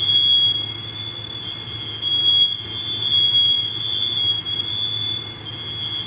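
Smoke alarm sounding a steady, loud, high-pitched tone, set off by the oven broiler; the owner says it always goes off when the broiler runs without the fan and takes it for a heat-sensing alarm reacting to the broiler's heat, not smoke.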